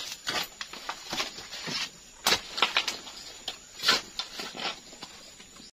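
Leaves and dry banana leaves rustling and crackling as someone pushes through thick undergrowth, in irregular bursts with a few sharper snaps.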